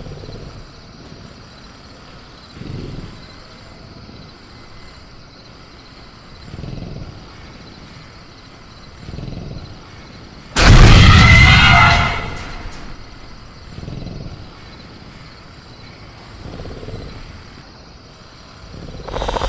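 Caged-raptor sound-effect ambience: faint high crickets over a low background, with soft low rumbles every few seconds. About ten and a half seconds in, one sudden loud crash lasting over a second, then fading.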